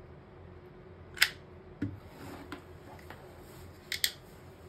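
An old hot glue gun's trigger clicking as glue is squeezed out: one loud sharp click about a second in, a fainter one shortly after, and a quick pair of clicks near the end.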